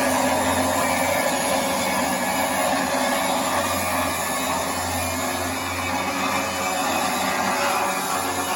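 Laimet HP-25 screw-type wood chipper running, a loud, steady machine noise with a low hum that swells and fades.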